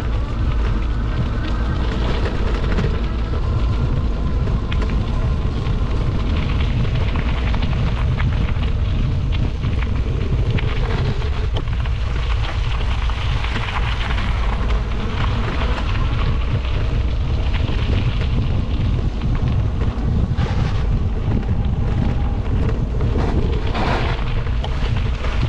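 Steady wind buffeting the microphone over crackling tyre-and-trail noise from an e-bike riding a dirt path.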